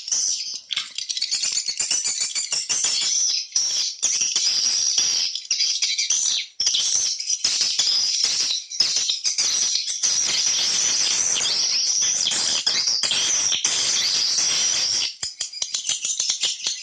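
Swiftlet lure call recording: a dense, continuous twitter of rapid high chirps and clicks, the kind of call played in swiftlet houses to attract edible-nest swiftlets.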